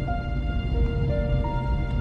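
Eerie background music: slow, held notes stepping from pitch to pitch over a constant low drone.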